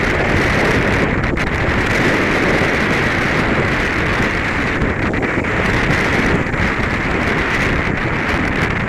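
Strong gusting wind buffeting the microphone, with a steady rush of noise and no let-up; waves may be churning underneath.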